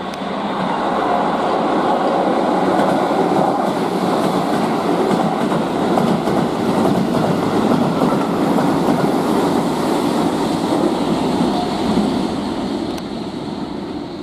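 Keihan 8000 series limited express train running through a station at speed without stopping, its wheels and cars making a loud rumbling rush. The sound builds as the train comes in, holds as the cars sweep past, and fades near the end.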